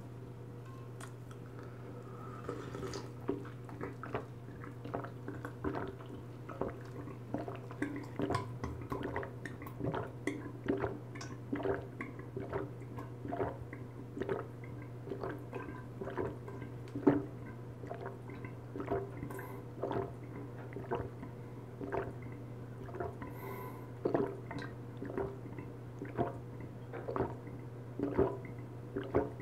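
A person gulping juice straight from a large bottle, close to the mic, with rhythmic swallows about one to two a second over a steady low hum.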